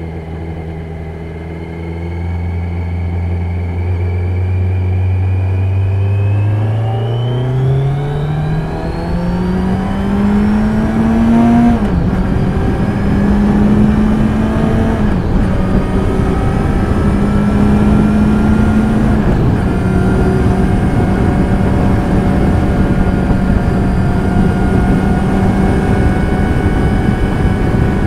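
Kawasaki Z900's inline-four engine, heard from a recorder under the pillion seat: it holds a steady low note, then pulls up with rising pitch, drops back at an upshift and once more shortly after, and settles into steady cruising. A growing rush of wind and road noise runs under it.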